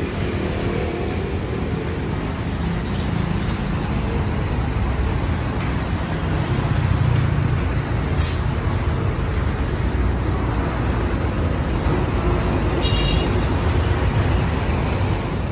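Steady street traffic noise. A sharp click comes about halfway through, and a brief high-pitched tone a few seconds before the end.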